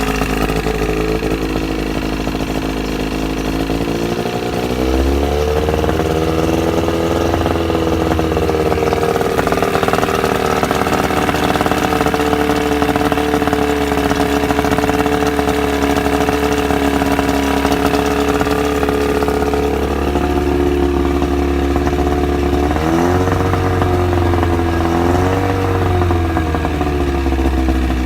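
1981 Johnson 35 hp two-stroke outboard motor running after a fresh start. The engine speed rises about five seconds in and holds steady, then dips and picks up again a few times near the end.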